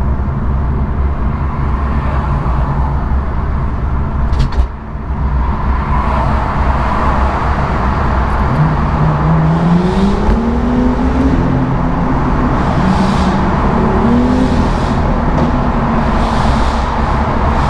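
BMW M2's N55 turbocharged straight-six through an M Performance exhaust, driven hard. There is a brief dip with a couple of sharp clicks about four and a half seconds in, then the engine note rises in pitch as it revs up, stepping up again twice.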